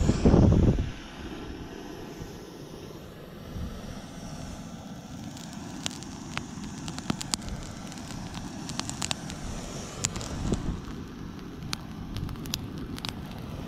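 Dead grass and reeds burning, with sharp crackles and pops that become more frequent about five seconds in, over a steady low rushing noise. A loud low rush in the first second.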